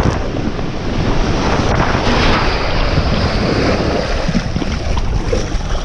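Rushing, splashing water and wind buffeting the microphone during a ride down a water slide, a loud steady noise with no pauses.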